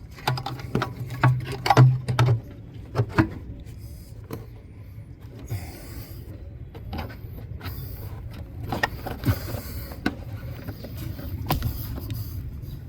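A plastic engine air cleaner housing being handled and fitted into place: a string of irregular clicks, knocks and rattles over a low hum.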